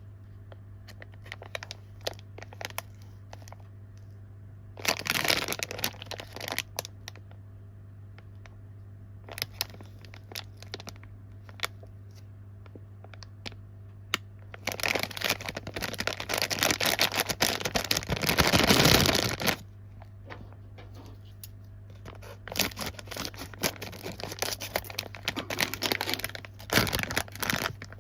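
Plastic snack wrappers crinkling and tearing as packages are handled and opened, in several bursts with small clicks between; the longest and loudest stretch comes a little past the middle.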